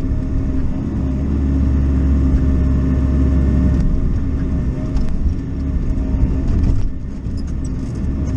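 Bobcat E42 mini excavator's diesel engine running with its hydraulics working the boom and bucket, heard from inside the cab. A steady hum swells louder and deeper from about one second in, as the engine takes load, and eases back a few seconds later.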